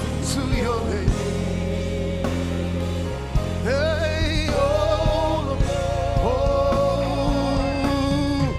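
Live gospel worship music: voices holding long sung notes with vibrato over bass and keyboard, with light drum hits.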